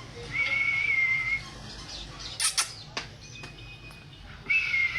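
Pet parrot whistling a long, steady note, then giving a short harsh squawk about halfway through and whistling again near the end.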